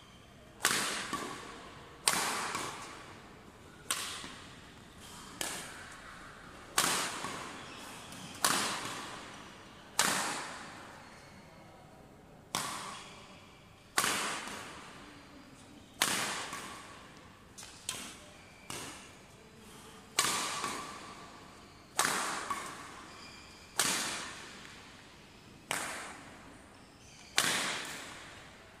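Badminton racket smashing shuttlecocks, a sharp crack about every one and a half to two seconds, each ringing on in the hall's echo.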